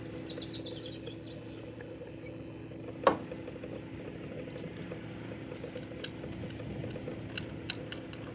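Small metal clicks and clinks from a halyard shackle and furler fitting being handled, several of them in the last few seconds, over a steady low hum. One louder sharp knock about three seconds in.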